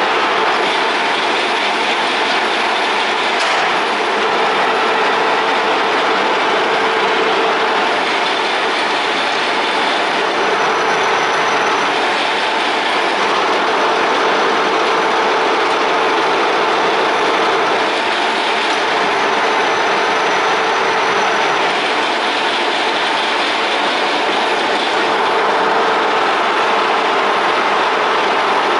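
TOS H-80 horizontal boring machine running as its rotary table turns: a steady mechanical whir from its drives and gearing, with a faint steady whine.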